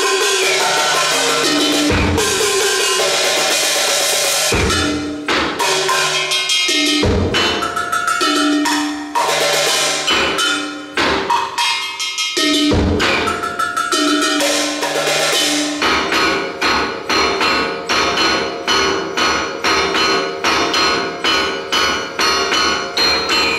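Solo percussion played on a table of small percussion instruments: dense rolls and strikes with ringing pitches, settling about two-thirds of the way in into a steady, even pulse of strokes.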